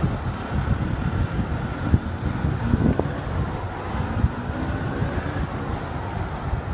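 Wind buffeting the microphone of a camera riding along on a bicycle, with car engines and street traffic underneath as a steady low rumble.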